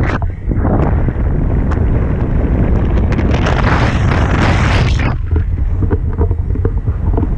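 Wind buffeting an action camera's microphone in paraglider flight: a loud, steady rumble, with a stronger rush of hiss for about a second and a half midway.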